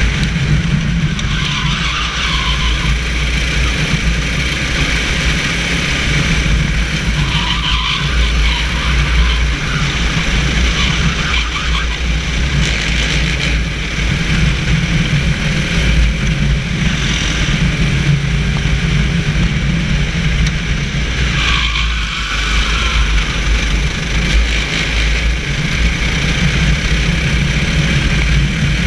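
A racing kart's engine running at race speed, heard from on board the kart, with a few brief higher-pitched patches: about a second in, around eight seconds and around twenty-two seconds.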